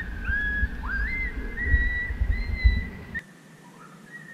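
Coyote howling: a run of high, wavering notes, each rising and then held, several overlapping. They cut off abruptly about three seconds in.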